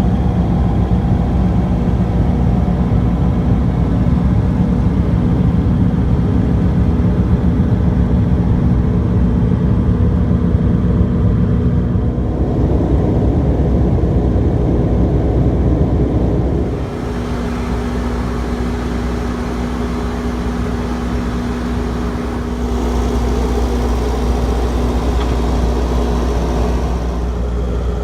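MQ Power WhisperWatt 70 generator's Isuzu 2.9-litre diesel engine running steadily inside its sound-attenuated enclosure, a constant low hum. Its sound shifts a few times, dropping slightly in level past the middle and picking up again later.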